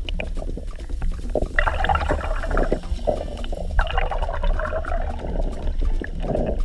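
Muffled underwater water noise from a camera held below the surface: a steady low rumble, with bubbling and sloshing that picks up about a second and a half in.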